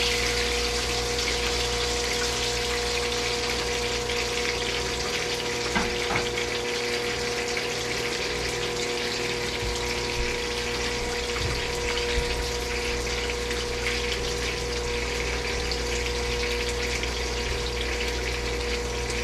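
Fish frying in hot oil: a steady sizzle with a steady hum underneath and an occasional faint tick.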